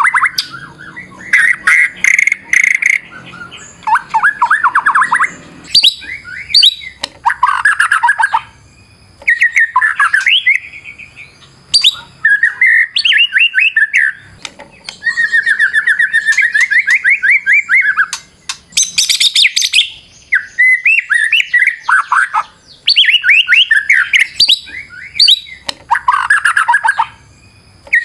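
White-rumped shama (murai batu) singing a full, varied song: loud phrases of rapid trills and whistles, each a second or two long, with short pauses between them and a few sharp clicks mixed in.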